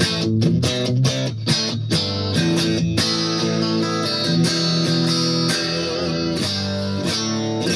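Electric guitar played through an amp with a LEKATO R COMP compressor pedal engaged. About three seconds of quick picked notes, then held notes that ring on with even sustain.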